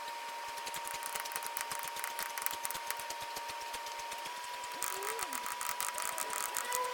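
Lathe running with a steady whine and a fast, even ticking; about five seconds in a brighter hiss joins, as of the tool cutting.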